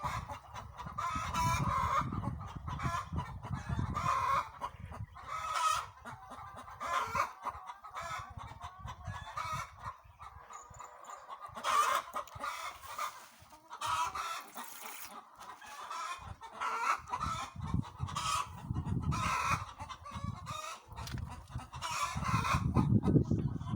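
A flock of laying hens clucking continuously, many short overlapping calls. A low rumbling noise sits under the calls at the start and rises near the end.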